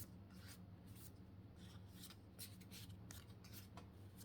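Trading cards sliding over one another as a pack is flipped through by hand: a string of faint, soft swishes, two or three a second, over a steady low hum.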